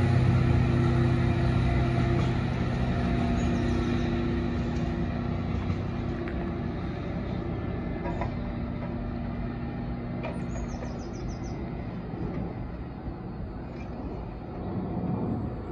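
Diesel engine of a tamper (track maintenance machine) running steadily as it pulls away, its hum fading as it recedes. A low rumble starts to build near the end.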